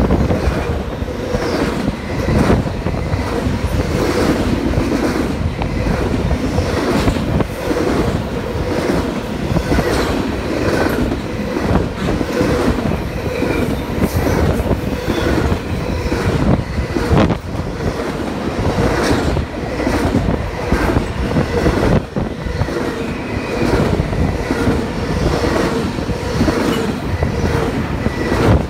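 Double-stack intermodal container freight train passing close by at speed: a loud continuous rumble with the rapid clatter of steel wheels over rail joints and a steady ringing tone from the wheels on the rails.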